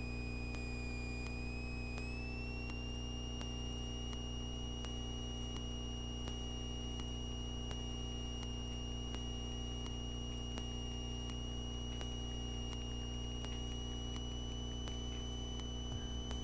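Steady drone of a light single-engine airplane's engine and propeller inside the cockpit, with a thin high-pitched electrical whine that rises slightly in pitch about two seconds in and faint ticks about once a second.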